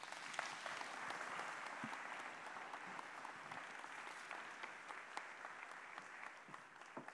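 Audience applauding, fairly faint, the clapping dying away near the end.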